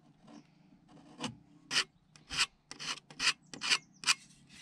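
Snap-off utility knife blade scraping squeezed-out glue from the joints of unoiled tongue-and-groove boards, in about eight quick strokes starting about a second in.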